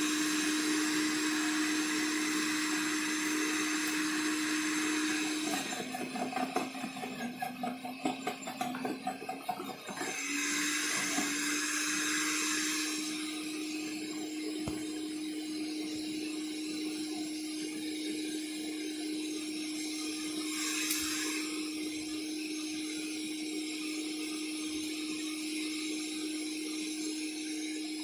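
Sun Joe CJ603E 15-amp electric wood chipper-shredder running with a loud, steady motor hum. About six seconds in, the motor drops in pitch under load and the sound turns choppy as branches are chipped, for about four seconds, before it speeds back up; a shorter bit of chipping comes about 21 seconds in.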